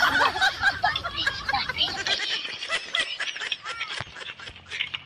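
Children's excited voices and laughter as they scramble about in play.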